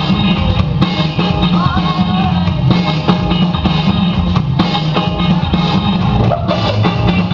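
Loud rock music with a drum kit and guitar playing a steady beat for the dancers.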